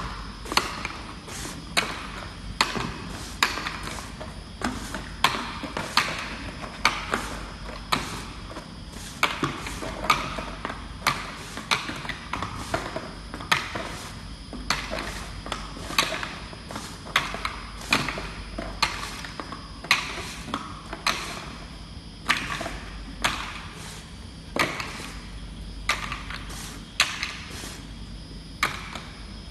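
Automatic top-surface labelling machine running: a steady high whine over a low hum, broken by sharp mechanical clicks that come irregularly, about once or twice a second, as round tins travel the conveyor and take their labels.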